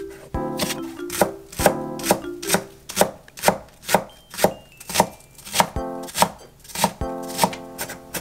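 Tramontina vegetable knife chopping green onion on an end-grain wooden cutting board, the blade knocking the wood in a steady rhythm of about two chops a second.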